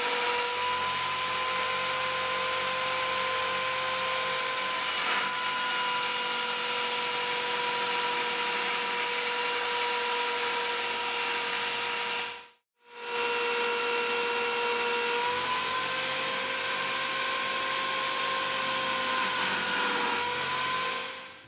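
Bench belt sander running steadily with a constant whine, grinding a metal pipe reducer fitting held against the belt. The sound cuts out for a moment about halfway through, and its pitch sags slightly a couple of times near the end as the fitting is pressed harder.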